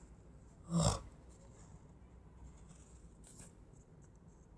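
Faint scratching of a drawing tool on notebook paper, with one short voice sound, a breath or murmur, about a second in.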